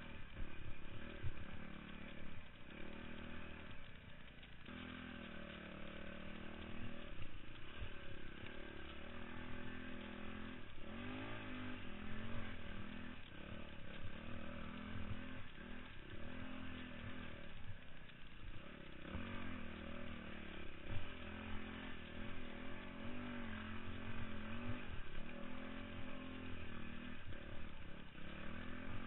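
Dirt bike engine revving up and down again and again as the bike is ridden along a rough trail, heard from a helmet-mounted camera.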